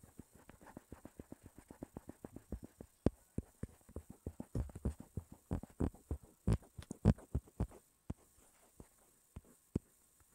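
Quick, irregular low thumps and taps of drawing strokes on a tablet's touchscreen, several a second, loudest in the middle and thinning out to a few near the end.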